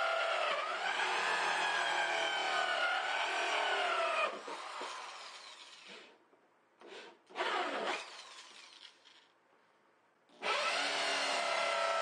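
Corded electric drill with a hole saw cutting through the plastic lid of a small ice chest. The motor whine sags slightly under load, stops about four seconds in and winds down, gives a few short bursts, and then starts cutting again near the end.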